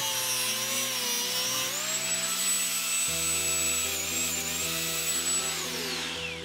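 Angle grinder with a cut-off wheel cutting through stainless-steel braided AN fuel hose: a high motor whine that sags in pitch as the wheel bites into the hose. Near the end the grinder is released and winds down with a falling whine.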